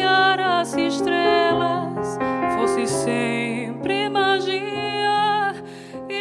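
Slow, tender song: a woman's voice sings long notes with vibrato over piano accompaniment, growing quieter near the end.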